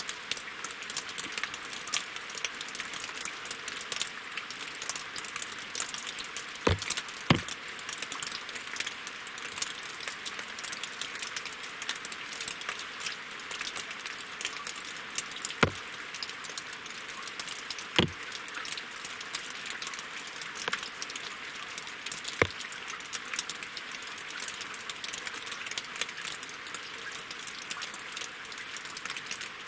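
Winter rain falling steadily on lake water and wooden logs as a dense, fine patter. A few heavier single drops strike more loudly, two close together about seven seconds in and others further on.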